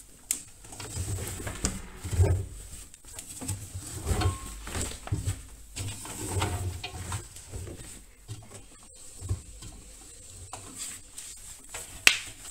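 Towels being pulled by hand out of the drum of an Indesit front-loading washing machine after the wash: irregular fabric rustles and soft, muffled thumps, with one sharp knock near the end.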